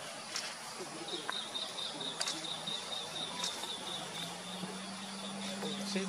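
An insect trilling steadily on one high pitch, starting about a second in, over outdoor background noise. A few sharp clicks are heard, and a faint low hum joins about four seconds in.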